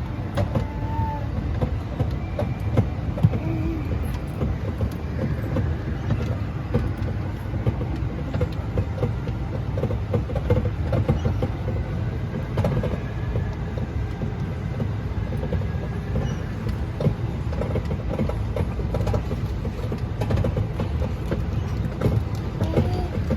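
Small mall ride-on passenger train running, with a steady low rumble and light rattling. Its usual children's music is switched off.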